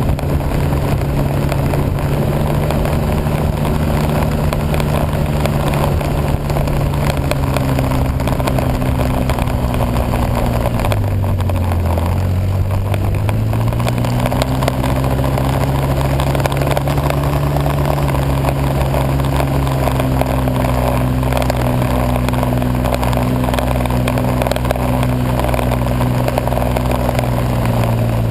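Vehicle engine running steadily under way, with a rushing wind noise over it; about eleven seconds in the engine slows, then picks back up to its earlier speed.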